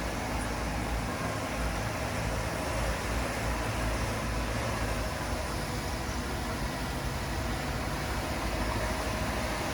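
Heavy-equipment diesel engine running steadily at work, a continuous low engine sound with no breaks or distinct knocks.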